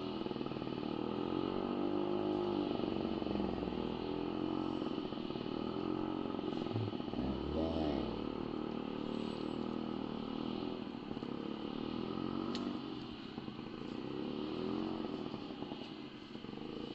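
Motorcycle engine running with its pitch rising and falling as the throttle is worked, with a quick rev about halfway through.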